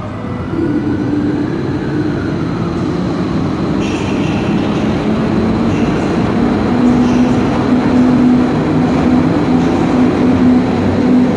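A Pafawag 4E (EU07-class) electric locomotive pulling out with a short train and passing close by. Its steady humming drive and rolling rumble grow louder as it approaches and goes past.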